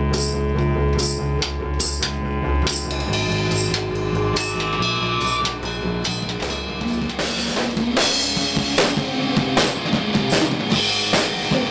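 A rock drum kit being played, kick drum, snare and hi-hat keeping a steady beat, over held bass and instrument notes. The drum strikes come harder and clearer from about seven seconds in.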